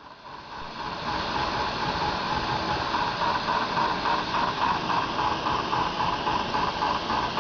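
A machine running: a steady hiss that fades in over the first second, with an even pulsing about three or four times a second from about three seconds in.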